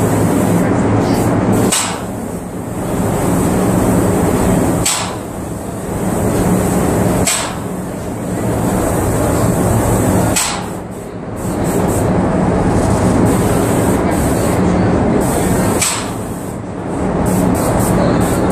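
HYVST GS30 pneumatic airless paint sprayer running, a loud steady hiss and hum. Five times, every few seconds, it gives a sharp click with a brief drop in level, typical of the air-driven pump changing stroke.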